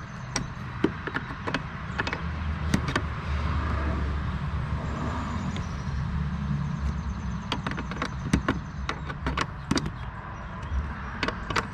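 Scattered sharp clicks and light knocks of hand tools working on the car, over a steady low hum.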